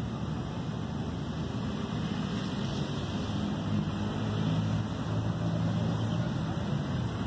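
Steady low rumble of a motor vehicle's engine running, with a faint hum that swells a little in the middle and eases off near the end.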